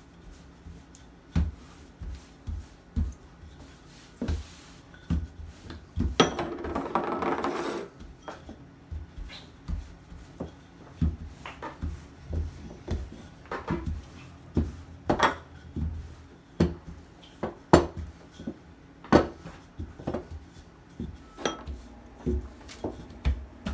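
Wooden rolling pin working pizza dough on a floured countertop: a string of light knocks and clicks, one or two a second, as the pin is pushed back and forth, with a longer rub about six seconds in.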